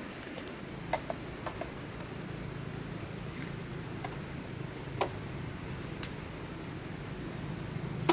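Scattered light knocks and clicks as camp gear and bamboo poles are handled, a handful of them spread through the few seconds. Under them runs a steady thin high-pitched insect drone.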